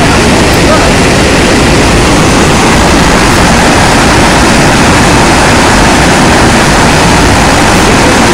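Muddy floodwater pouring over a concrete wall and crashing into a construction pit: a loud, steady rush of water.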